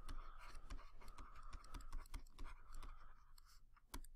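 Digital pen stylus tapping and scratching on a writing surface while handwriting: a fast, irregular run of faint light clicks.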